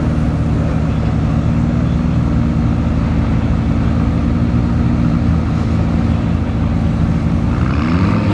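McLaren Senna GTR's 4.0-litre twin-turbocharged V8 idling steadily, its engine note rising near the end.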